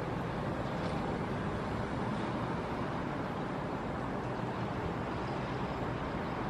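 A Boeing 787-8 airliner's jet engines heard from the ground as a steady, even rush of noise.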